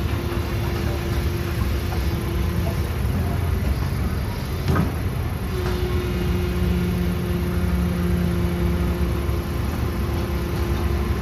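Diesel engines of a long-reach excavator and dump trucks running as a steady low rumble, with a held droning tone over it while the excavator swings and digs. The tone drops out for a couple of seconds near the middle, and there is one sharp knock about halfway.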